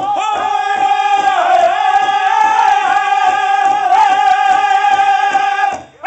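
Powwow drum group singing a contest song: high-pitched voices in unison holding long notes over a steady drumbeat. The singing breaks off briefly near the end.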